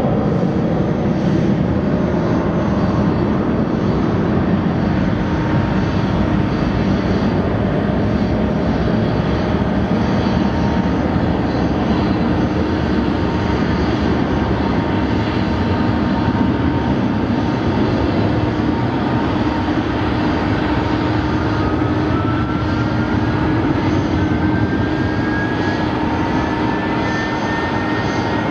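Kawasaki C-1 military transport's twin Pratt & Whitney JT8D turbofan jet engines, running loud and steady as the aircraft flies by. A thin whine rises slowly in pitch over the last several seconds.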